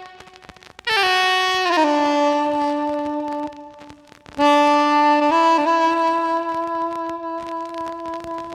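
Instrumental interlude of a Korean ballad: a reed wind instrument plays long held notes with downward slides, in two phrases, the first starting about a second in and the second around four and a half seconds in.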